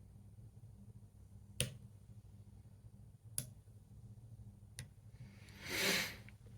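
Three sharp, separate metallic clicks from a lever padlock being picked, as the pick and tensioner work the levers, followed near the end by a short breathy hiss.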